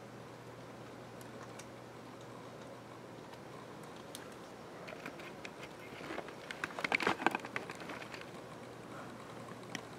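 Electric model train rolling along sectional track past the microphone: a rapid clatter of small clicks from the wheels on the rails swells about halfway through, is loudest a little later as the locomotive passes, then fades.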